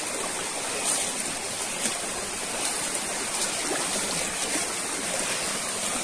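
Shallow stream rushing steadily over rocks and stones.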